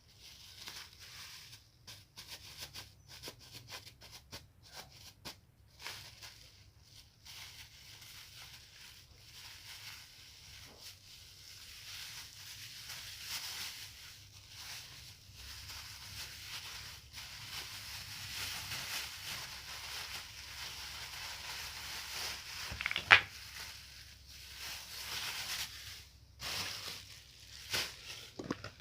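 A parcel being opened by hand: packaging rustling and crinkling, with tearing, and one sharp loud snap about 23 seconds in.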